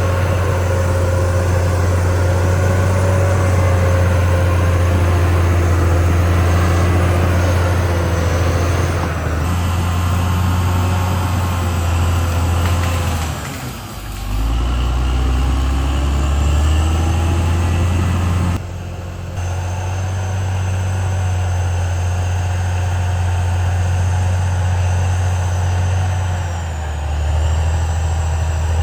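CAT D6R XL bulldozer's diesel engine running steadily under load with a deep drone. About fourteen seconds in, the engine briefly sags in pitch and level, then picks up again.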